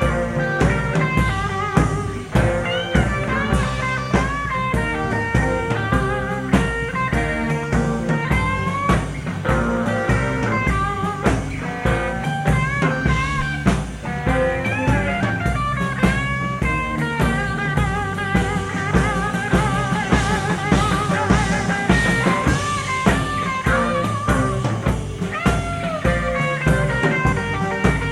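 Live blues-rock band playing an instrumental break, with a lead electric guitar solo full of string bends and vibrato over bass and a steady drum-kit beat, heard as a direct soundboard recording.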